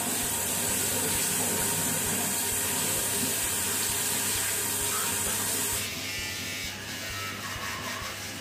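Tap water running steadily into a ceramic bathroom washbasin while hands are rubbed under the stream. The water sound stops about six seconds in, and a quieter background takes over.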